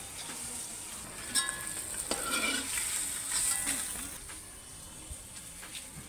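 Hot oil sizzling in a steel kadhai after frying fish, with a metal spatula scraping and clinking against the pan a few times. The sizzle eases a little near the end.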